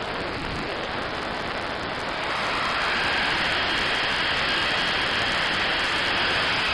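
Synthesized jet-aircraft noise from a VCV Rack 2 modular synth patch: a steady hiss that swells about two seconds in, with faint high whining tones over it.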